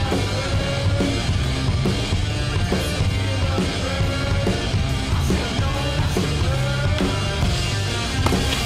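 Rock music with a steady drum beat, heavy bass and a melody line.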